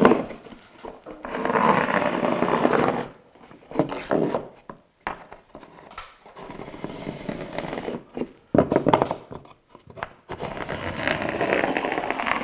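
A pencil scratching lines onto a textured drywall wall and ceiling, guided by a scrap piece of crown moulding held against it. After a sharp tap at the start there are four scraping strokes, each lasting about one to two seconds.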